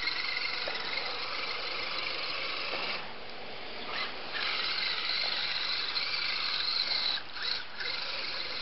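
Electric motor and gear drivetrain of an Everest-10/SCX10 hybrid RC rock crawler whining under throttle while it churns through a muddy puddle. The whine drops out for about a second a third of the way in and briefly again near the end, as the throttle is let off.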